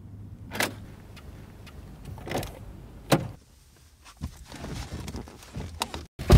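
Getting into a BMW E36 3 Series: the key in the door lock, the door unlatching and opening, and someone climbing into the seat, heard as a handful of separate clicks and knocks, the sharpest about three seconds in.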